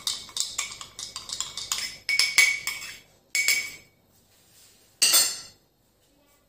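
A spoon clinking and knocking against a dish as salad dressing is put on, with rapid clinks for about three seconds, then a couple more, stopping about five and a half seconds in.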